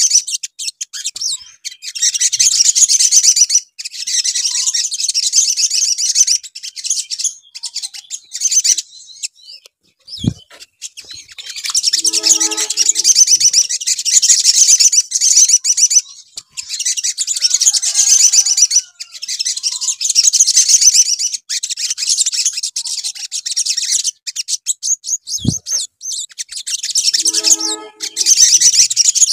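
Olive-backed sunbirds (sogon) singing: long runs of fast, high-pitched twittering chatter several seconds long, broken by short pauses. A brief low sound comes twice, about 10 and 25 seconds in.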